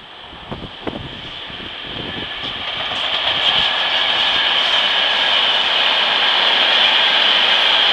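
Train approaching on Italian railway track: a few knocks in the first second, then the rush of wheels on rail growing louder over the next two seconds and running steadily as it goes by.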